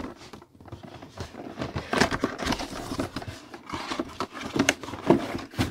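Cardboard box flaps being pulled open and folded back by hand: steady rustling and scraping of cardboard packaging, with many small clicks.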